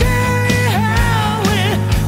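Heavy metal band playing live: a long high note, held and then wavering and dropping about a third of the way in, over steady bass and drums.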